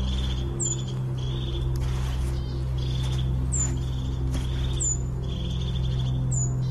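A cricket-like high trill in short pulses, with a sharp, very high falling chirp four times, over a low steady hum.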